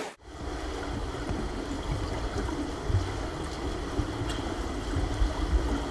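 Muffled underwater pool sound of a swimmer's breaststroke kicks on her back: a low rumble with irregular soft thumps. It begins abruptly just after the start.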